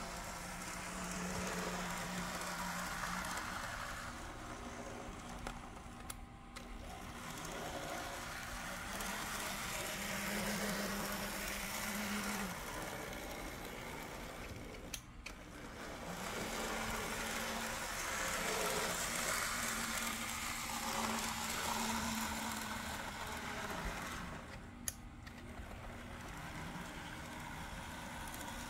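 Märklin Z-scale 4-6-0 steam locomotive running on its test track, its tiny electric motor and wheels whirring over the rails. The sound swells and fades as the train circles the layout, with a low hum that comes and goes.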